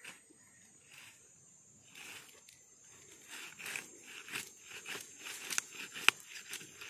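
Footsteps crunching and rustling through dry leaves and twigs, getting busier after the first couple of seconds, with one sharp crack about six seconds in. A steady high-pitched whine runs underneath.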